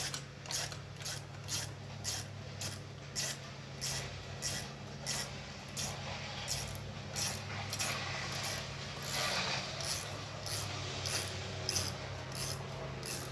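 Ratchet socket wrench tightening a 12 mm bolt, its metal clicking in short, regular strokes about twice a second, over a steady low hum.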